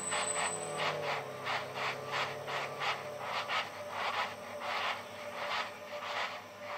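Space Shuttle orbiter rolling out on the runway and braking after touchdown: a rhythmic scraping pulse about three times a second, with faint falling tones as it slows and a high whine that stops about a second in.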